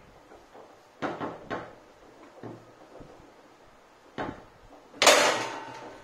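Foosball table in play: the ball knocks sharply off the rod figures and walls a few times, then a hard bang about five seconds in with a short ringing tail, a hard shot hitting the goal.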